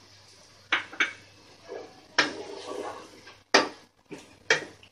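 Wooden spatula stirring chicken and vegetables in tomato puree in a nonstick pot, knocking and scraping against the pot's side about five times, with the loudest knock about three and a half seconds in.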